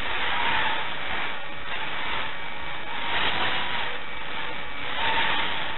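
Small 3S FPV racing quadcopters' motors and propellers whirring, the sound swelling and easing several times as the throttle changes.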